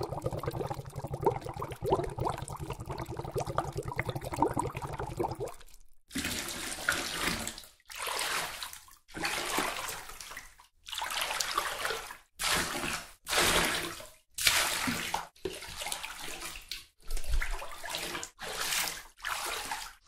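Water sound effects: about five seconds of continuous bubbling and gurgling water, then a run of about a dozen short, separate water splashes, each lasting about a second.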